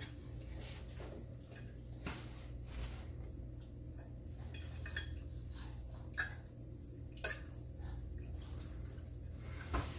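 A fork clinking and scraping against a plate of food now and then, a few short sharp clicks, over a low steady hum.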